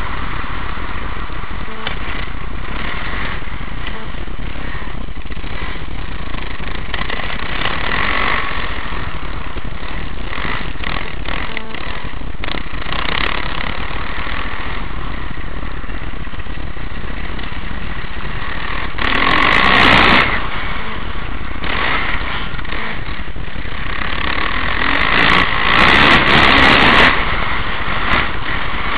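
Kawasaki KX450F motocross bike's single-cylinder four-stroke engine running under throttle while riding, heard through a helmet camera. It gets louder in two surges, about two-thirds of the way through and again near the end.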